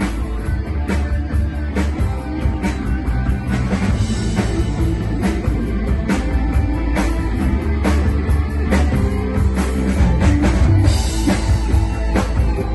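Rock band playing an instrumental passage without vocals: guitar over a drum kit keeping a steady beat.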